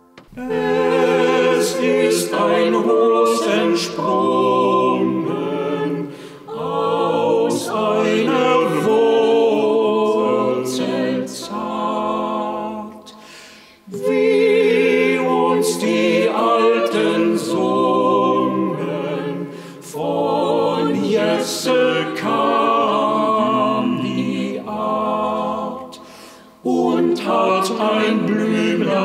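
A small a cappella vocal quartet of mixed men's and women's voices singing a sacred piece, phrase by phrase, with short pauses between phrases.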